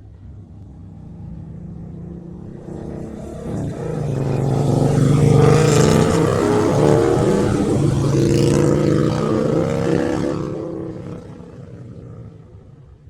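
Motorcycle engine passing by, growing louder over about five seconds and then fading away. Its pitch climbs while it is loud, with a break in the middle like a gear change.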